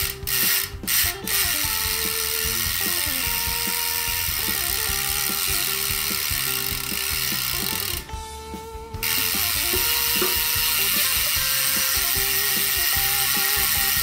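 Bicycle freehub pawls clicking so fast they merge into a continuous buzz as the tubeless wheel is spun by its hub to spread sealant inside the tyre. The buzz stops for about a second about eight seconds in, then starts again.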